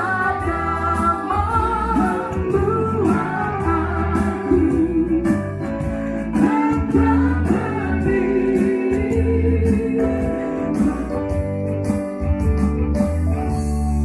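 A woman singing a hymn through a microphone and speaker, accompanied by an electronic keyboard.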